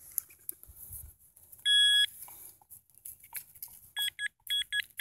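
Handheld Nokta pinpointer beeping. One steady beep comes just under two seconds in, then from about four seconds in a quick run of short beeps, four or five a second, signalling metal near the probe. Faint rustling of soil and handling comes in between.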